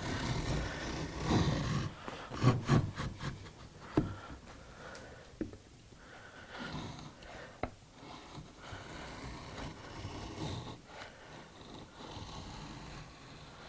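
Stanley No. 71½ router plane paring a shallow recess in a wooden board, its blade scraping and shaving the wood in short, uneven strokes. A few sharp clicks come between the strokes.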